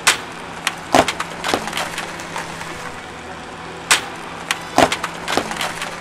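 A typewriter-style Bluetooth keyboard cracking and snapping as a car's tyres run over it. The sharp cracks come in two clusters, at the start and again about four seconds in.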